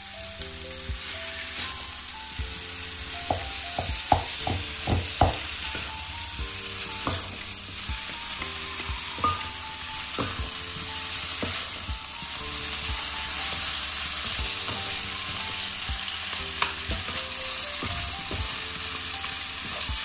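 Fried noodles with sauce sizzling in a hot pan while they are stirred and tossed, with irregular knocks and scrapes of the utensil against the pan, the loudest a few knocks about four to five seconds in.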